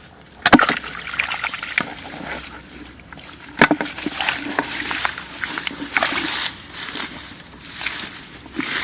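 Shallow water and wet mud sloshing and splashing in irregular bursts as hands work in them. The loudest splashes come about half a second in and again around three and a half seconds in.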